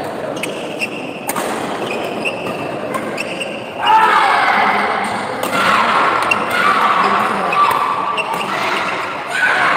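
Badminton doubles rally in a sports hall: rackets hitting the shuttlecock and shoes squeaking on the court, the sound echoing. From about four seconds in, loud shouting voices rise over the play.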